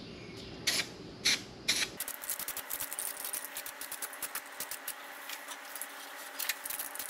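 Aerosol can of self-etch zinc weld-through primer spraying onto sheet metal: a few short bursts about half a second apart, then a longer, crackly spray.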